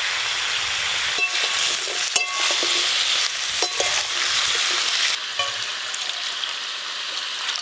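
Potato, eggplant and greens sizzling as they are lightly fried in an aluminium karahi, with a metal spatula stirring and clanking against the pan a few times. About five seconds in, the sound gives way to a quieter hiss of water being poured over leaves in a steel bowl.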